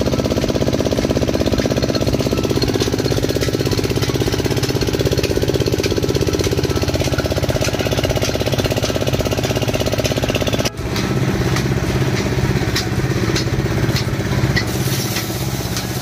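Small single-cylinder engine driving a grain thresher, running steadily with a rapid even beat. After a break about two-thirds through, the engine and thresher run on with light ticking and rattling.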